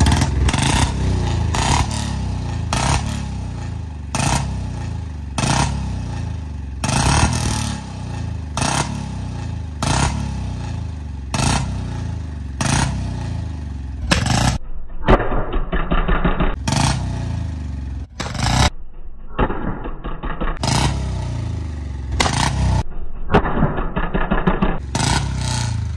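1985 Royal Enfield Bullet's single-cylinder engine blipped hard again and again, with sharp pops and bangs from the exhaust, roughly one a second: the throttle is being worked to make it backfire.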